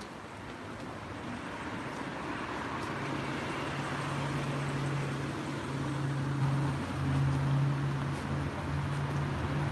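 A motor vehicle's engine hum with traffic noise, growing slowly louder. A steady low hum comes in about three seconds in and carries on with a few short breaks.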